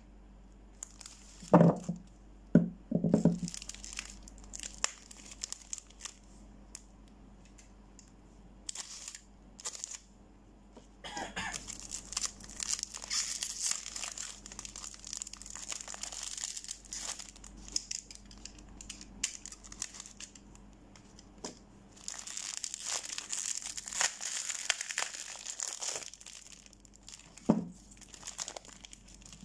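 Soap bar wrappers crinkling and tearing as the packs are opened by hand, in two long stretches of rustling. A few soft knocks of soap bars being handled come in the first few seconds and once near the end.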